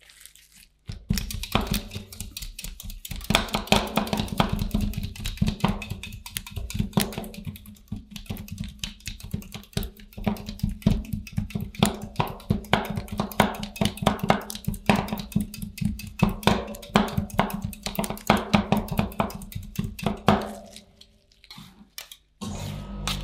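Metal spatulas rapidly chopping and tapping on the frozen steel plate of an ice cream roll pan, a dense run of sharp metallic strikes over a steady low hum. The chopping stops near the end.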